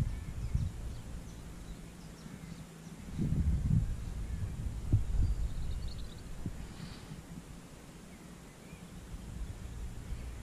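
Uneven low rumbling on the microphone, from wind or the camera being moved, loudest about three to four seconds in and again around five seconds. Faint bird chirps come in about six to seven seconds in.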